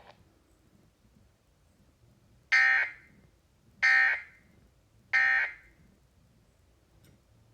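Three short EAS end-of-message data bursts, buzzy digital chirps about a second apart, received over the radio after a severe thunderstorm warning.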